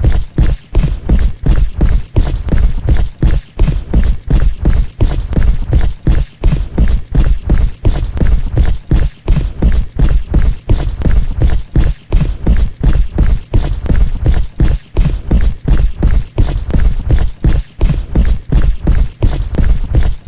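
Heavy footsteps: a steady, unbroken run of loud, deep thuds.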